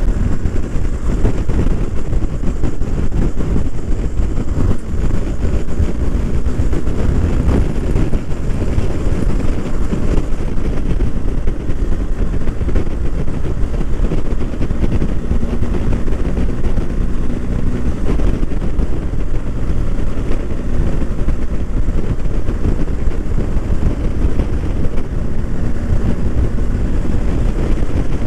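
Wind rushing over the microphone of a BMW R1250 GS motorcycle under way, with the bike's boxer-twin engine running steadily underneath.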